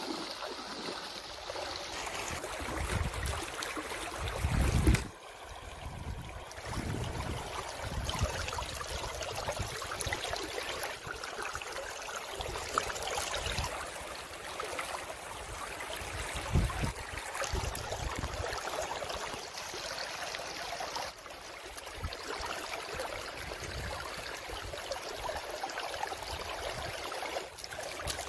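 River water flowing with a steady rush, broken by several sudden cuts. There are occasional low thuds, the loudest a few seconds in.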